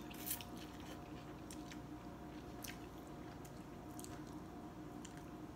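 A person slurping rice noodles from a bowl of soup just after the start, then chewing quietly, with a few short faint clicks. A faint steady hum runs underneath.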